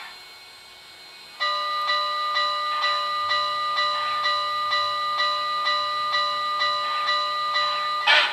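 Locomotive bell from the DCS sound system of an MTH HO-scale Southern Pacific 4-8-8-2 cab-forward model, ringing about twice a second. It starts about a second and a half in and stops near the end, where a short loud hiss follows.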